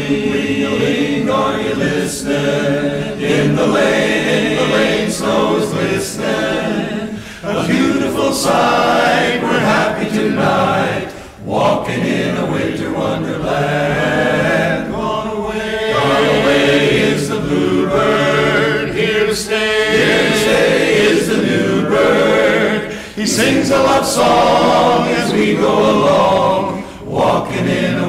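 Men's chorus singing a cappella in close harmony, in phrases with brief breaths between them.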